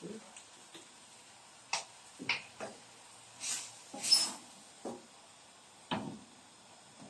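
Wooden spoon stirring in a stainless steel pan, with several separate knocks against the pan and a louder scraping rush a little past halfway.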